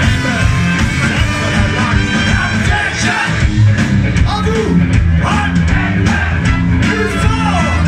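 Live rock band playing loudly, with electric guitar, bass, drums and a singer, heard from among the audience.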